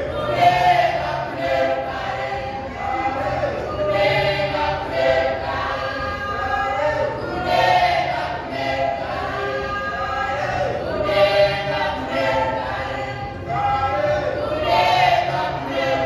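Youth choir singing together a cappella, with a louder phrase coming back about every three and a half seconds.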